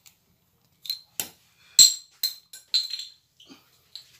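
A quick run of sharp clinks and clicks from small hard parts being handled, about eight or nine in three seconds, the loudest about two seconds in.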